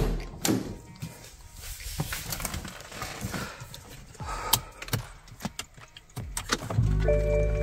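BMW X5 driver's door clunking open and shut with knocks and clicks as someone climbs in, then near the end the X5's diesel engine cranks and starts into a steady low rumble.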